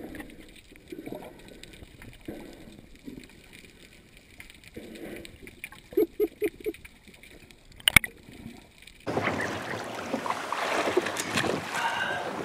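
Water lapping and sloshing around a boat, with a few soft knocks and one sharp knock. About nine seconds in the sound changes abruptly to louder, steady wind and water noise.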